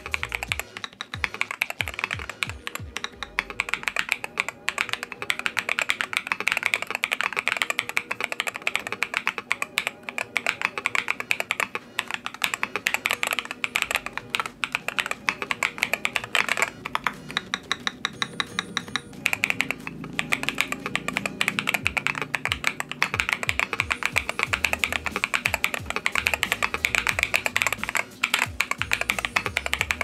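Fast continuous typing on a Gamakay LK67 mechanical keyboard fitted with lubed Akko Lavender Purple switches, tape, EVA-foam and PE-foam mods and XDA-profile keycaps: a dense stream of keystroke clacks. Background music plays underneath.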